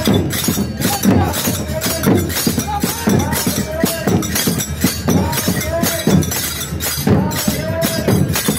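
Dammam drums beaten in a fast, steady rhythm, with a crowd of mourners chanting in repeated calls over the drumming.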